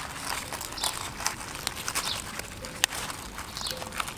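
A bamboo stick scraping the scales off a whole fish on a wooden board: a run of irregular scratches and clicks, with one sharper click about three seconds in.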